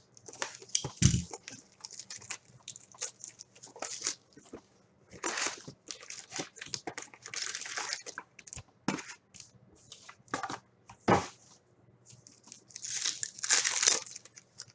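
Hockey card packs being torn open, their wrappers crinkling and crumpling in an irregular run of crackles and rustles. Two dull knocks come through, one about a second in and one about eleven seconds in.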